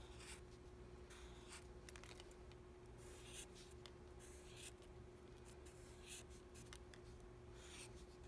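Black Sharpie permanent marker drawing on paper, faint short strokes one after another as a row of connected U-shaped waves is drawn.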